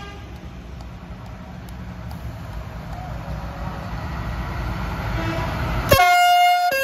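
A large tractor's diesel engine rumbling as it approaches and passes close, growing steadily louder. Near the end a loud horn blast cuts in, then drops to a lower note.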